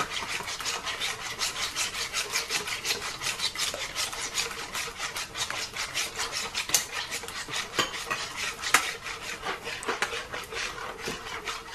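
Wire whisk beating eggs, salt and cooking oil in a metal pot: fast, even scraping strokes, about four or five a second, with a couple of sharper clinks of the whisk against the pot past the middle.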